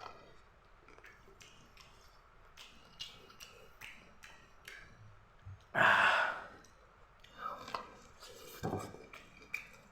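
Close-up chewing and wet mouth clicks of someone eating boiled corn. About six seconds in there is a short, loud breathy burst, and a second, shorter one comes near the end.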